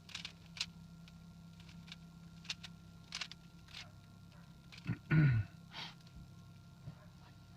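Plastic speed cube being turned by hand: scattered short clicks as its layers are rotated during a solve. About five seconds in, a brief low vocal sound falls in pitch, like a sigh.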